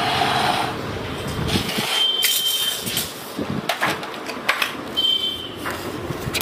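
Knocks and clinks of metal sewing machine parts and tools being handled while a hand sewing machine head is assembled. A short, high, steady beep sounds twice.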